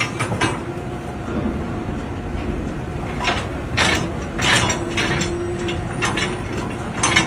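Steel container lashing gear, a lashing rod and turnbuckle, clanking and rattling several times as it is fitted by hand, over a steady low rumble.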